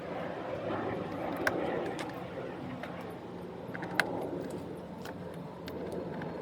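A few sharp plastic clicks over a steady background hiss: push-pin retainers being pressed in to secure a fender flare.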